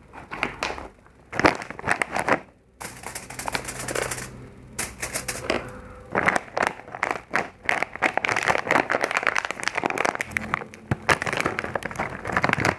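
Close-miked eating sounds: rapid crunching and crackling chewing of food.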